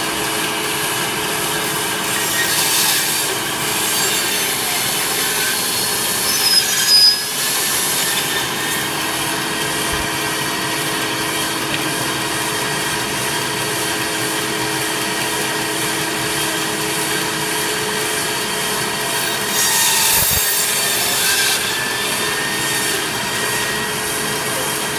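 Electric meat band saw running with a steady motor hum as its blade cuts slowly through beef shank and bone. The rasping of the cut grows louder a few seconds in and again about twenty seconds in, with a brief squeal about seven seconds in.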